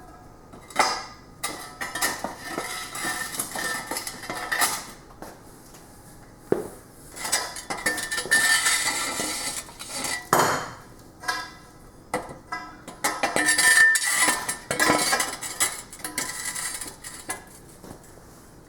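Square steel tube being slid into the boom sleeve of an engine hoist: metal scraping and clanking on metal, with ringing clinks, in several bouts with short pauses between.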